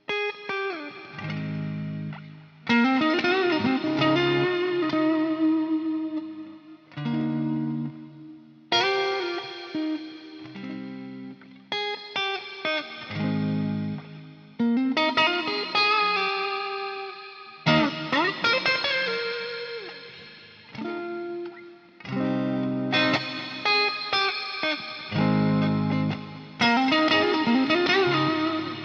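Fender Stratocaster electric guitar played through a multi-effects patch with light overdrive. Held chords alternate with single-note lead phrases that use string bends, in short sections of a few seconds each.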